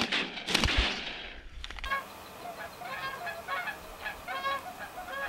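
A few sharp shotgun bangs in the first two seconds, then Canada geese honking in a string of short, repeated calls.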